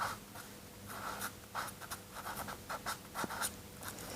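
Someone writing by hand: short, irregular scratching strokes with small ticks between them.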